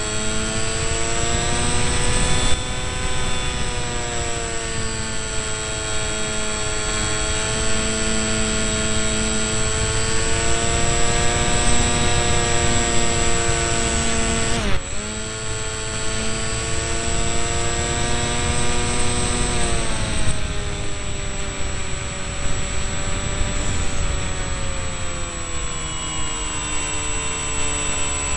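Electric motor and propeller of an RC delta-wing model in flight, heard from its onboard camera: a steady whining buzz whose pitch drifts with the throttle, dropping sharply about halfway through and then climbing back, over wind rush.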